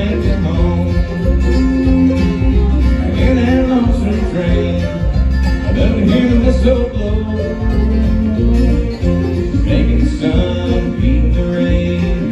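A bluegrass band playing live: fiddle, mandolin, acoustic guitars and bass guitar together.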